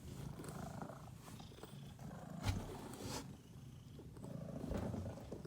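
Domestic cat purring up close, a steady low rumble. A sharp knock about two and a half seconds in, followed by a brief rustle.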